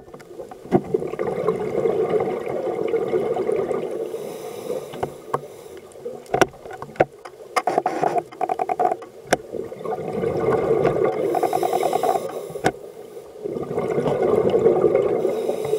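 Scuba diver's regulator breathing heard underwater: the rush of exhaled bubbles swells and fades every few seconds, with scattered sharp clicks and a brief fast burble.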